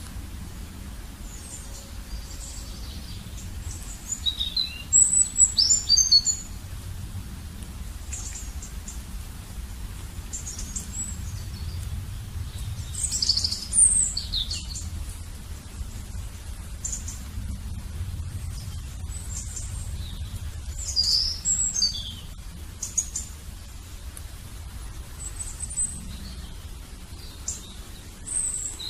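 Birds chirping in short clusters of high, quick calls, over a low steady rumble.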